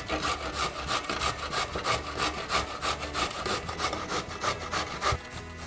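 Zucchini being grated on the coarse side of a stainless steel box grater: quick, even rasping strokes, several a second, that stop about five seconds in.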